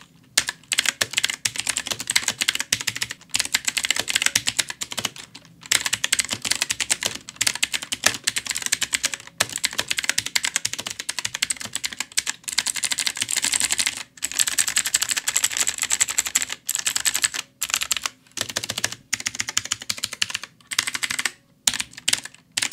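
Fast typing on a budget mechanical keyboard with blue clicky switches: a dense run of sharp clicks broken by a few short pauses. The springs are unlubricated and give the loud spring noise typical of cheap blue switches.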